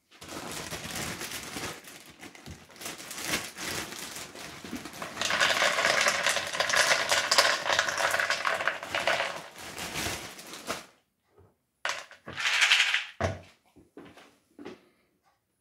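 Dry dog kibble poured from a scoop into a hard plastic slow-feeder bowl, the pieces rattling and clattering against the plastic ridges. The pour is loudest from about five to ten seconds in, with a shorter second rattle near the end.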